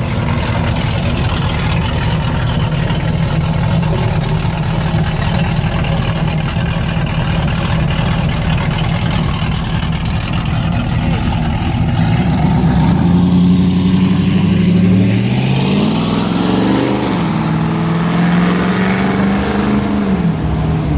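Car engine running at a low steady rumble, then revving up about twelve seconds in. Its pitch climbs, dips briefly and holds high before falling away near the end.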